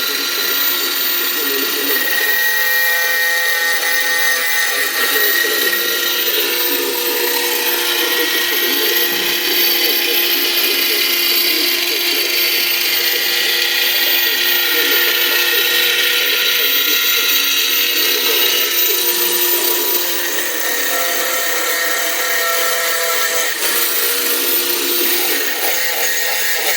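A power tool's electric motor running steadily with a high whine, its pitch shifting slightly a few times.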